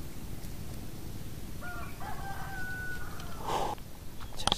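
A rooster crowing once, for a little over a second, about two seconds in, over a steady low rumble. A short scrape and a sharp click follow near the end.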